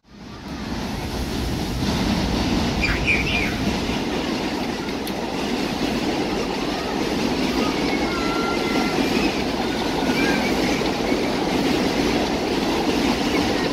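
Subway train running along an elevated steel structure: a steady rumble of wheels on rail, with a brief high squeal about three seconds in. The sound rises from quiet over the first second or two, then holds steady.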